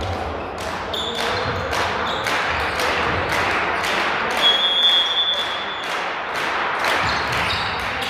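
Spectators in a sports hall clapping in a steady rhythm, about two claps a second, over general crowd noise, with a high whistle-like tone held for about a second midway.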